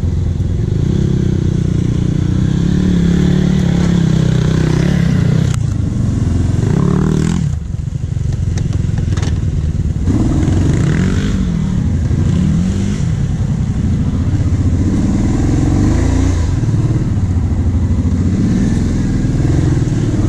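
Kawasaki Brute Force 750 ATV's V-twin engine running under throttle, its pitch rising and falling as the rider works the throttle. It eases off briefly about seven seconds in, then comes back with repeated throttle blips.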